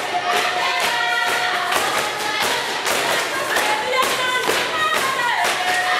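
Children's voices singing together in chorus, holding long notes that slide between pitches, over a steady beat.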